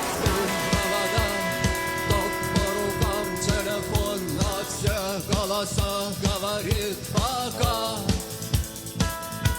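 Electric guitar playing a lead melody with bends and vibrato, through an overdrive pedal and delay, over a rock backing track with a steady drum beat and bass.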